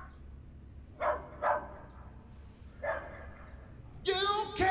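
Sampled dog barking three times in short single barks, about a second in, half a second later and near three seconds, heard through an outdoor "street huge warehouse" room reverb. A man's vocal comes in near the end.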